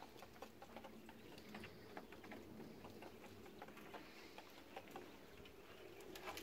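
Faint, irregular ticks and light rustling of Japanese quails pecking and scratching in dry straw litter.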